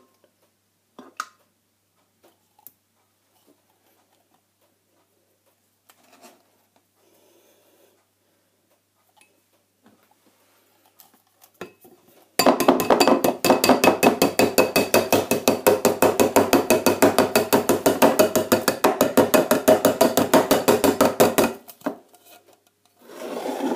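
Upturned metal food tin knocking and rattling against the rim of a ceramic bowl, with ringing clinks, as it is shaken to empty out canned macaroni cheese. Faint scattered taps come first; then, about halfway in, a loud, fast, even run of knocks begins and lasts some nine seconds before stopping.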